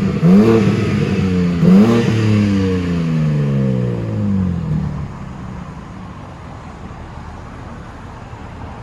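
BMW M3/M4 Competition's twin-turbo straight-six exhaust revved in two quick blips, the engine note then falling slowly and fading out after about five seconds.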